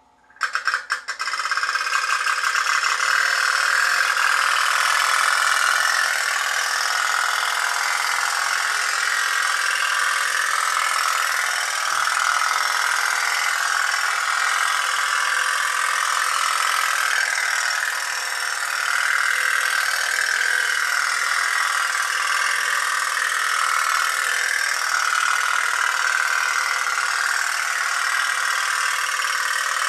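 Tin pop-pop (putt-putt) steam boat running, its candle-heated boiler pulsing steadily. It starts with a few uneven pops about half a second in, then settles into a continuous rapid putt-putt.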